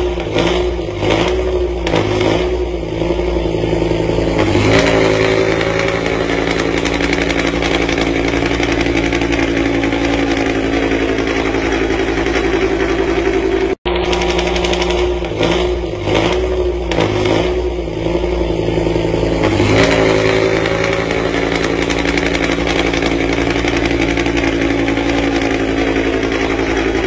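BMW M5's S85 5.0-litre V10 running, wavering unevenly for the first few seconds and then settling into a steady idle about five seconds in. The same stretch repeats from about 14 seconds in.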